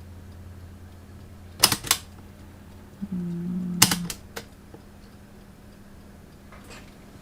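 Sanyo STD-1410 cassette deck's mechanical transport keys clunking: two sharp clicks, then about a second of a short low whir ending in another pair of clicks.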